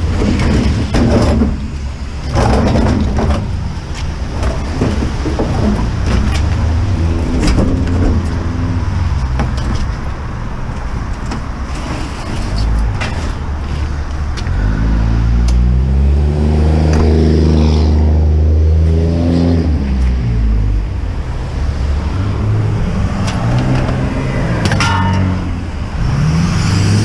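Road traffic passing close by, a constant rumble with one vehicle's engine swelling and dropping in pitch as it goes past around the middle. Scattered knocks and scrapes come from a white top-loading appliance being lifted into a car.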